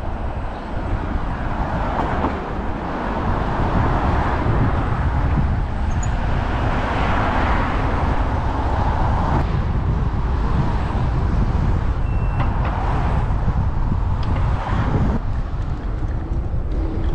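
Riding noise from a Segway Ninebot Max electric scooter: a steady deep rumble of wind on the microphone and tyres on the road, with a rushing traffic-like noise that swells and fades twice.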